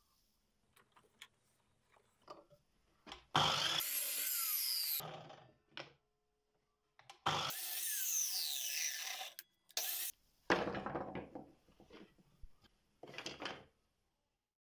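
Miter saw cutting short pieces from thin wooden slats, twice: each run is a loud, full-range cutting noise with a falling pitch as the blade winds down. A short burst follows near the 10-second mark, then the wooden pieces knock and clatter.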